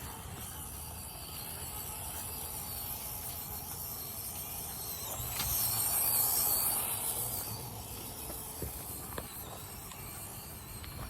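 Small electric motors and gearboxes of 1/24-scale RC crawlers whining as they drive, with a high wavering whine that grows louder for a couple of seconds around the middle, over a steady hiss.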